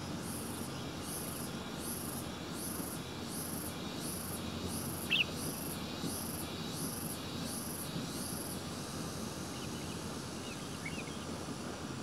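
High-pitched insect chirping in an even rhythm, about three pulses every two seconds, that stops about nine seconds in, over a steady low rumble. A single short bird chirp stands out about five seconds in, and a few faint cheeps come near the end.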